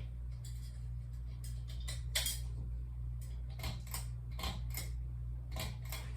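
A series of light, sharp clicks and clinks, about seven of them at irregular intervals, over a steady low hum.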